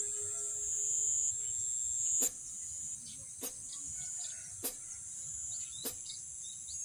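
Rice-field ambience: a steady high-pitched insect drone with faint, scattered bird chirps. A sharp tick sounds four times, about a second apart.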